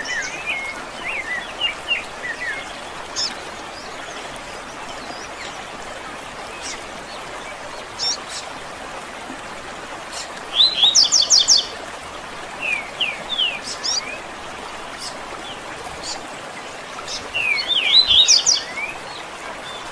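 Songbirds singing: quick chirping phrases and short trills in bursts, loudest about halfway through and again near the end, over a steady background hiss like a stream.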